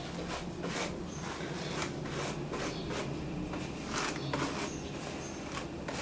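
A paddle hairbrush dragged through dry, curly hair to detangle it: a series of short, scratchy swishes, roughly two a second, at an uneven pace.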